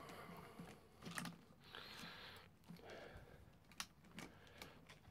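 Faint scattered clicks and a short rustle from pliers and gloved hands working a rubber fuel hose and its clips free.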